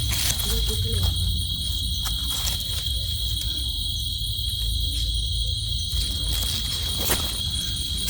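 Crickets trilling in a steady high-pitched chorus, over a low rumble with a few sharp clicks.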